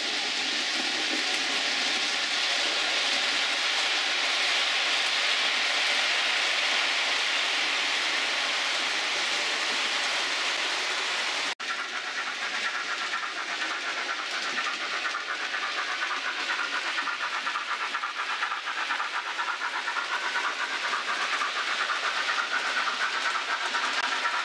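Model trains running on the layout's track: a steady running noise of motor and wheels on rail, with a sudden break about halfway through, after which the sound goes on a little changed.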